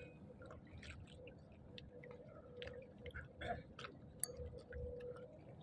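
Faint, irregular small clicks and ticks over a quiet, steady hum.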